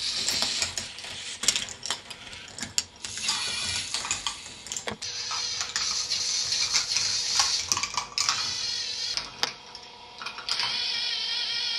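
K'NEX ball machine running: plastic balls rolling and clattering along the plastic tracks, with a steady run of clicks and rattles from the motor-driven lift mechanisms.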